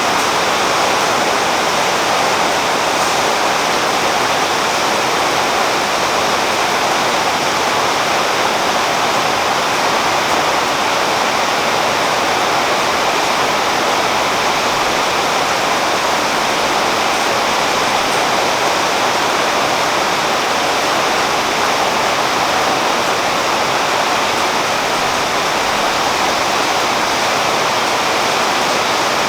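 Steady rain falling on a tree's leaves: a dense, even hiss of water with no breaks or single drops standing out.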